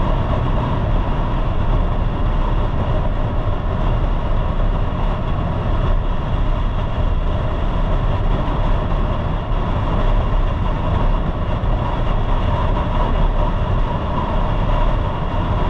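Steady wind buffeting and road noise on a motorcycle-mounted camera while cruising at highway speed, with the motorcycle running underneath. Loud and unbroken, with a heavy low rumble.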